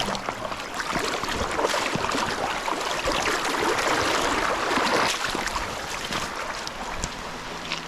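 Water rushing and splashing in a loud, even rush with scattered crackles, swelling to a peak about halfway through and then easing off.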